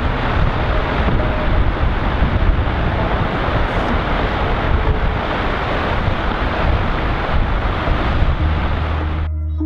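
Loud, steady rushing noise with a deep rumble, like wind buffeting the microphone. Near the end a low, held music tone comes in and the noise cuts off suddenly.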